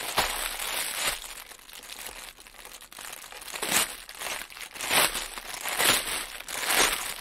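Clear plastic bags of diamond-painting drill packets crinkling and rustling as they are handled, in repeated bursts with louder crackles about once a second in the second half.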